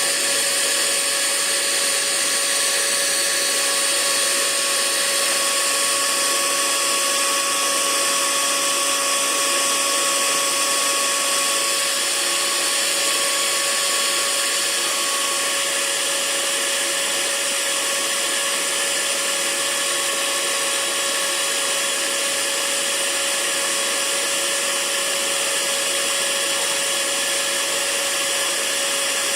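Hair dryer running steadily, a constant rush of blown air over a steady motor whine; one of the higher whine tones fades out about halfway through.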